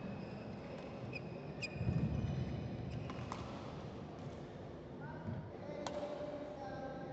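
Badminton court sounds: short squeaks of shoes on the court mat, and a sharp crack of a racket striking the shuttlecock about six seconds in. Voices carry in the hall, loudest about two seconds in.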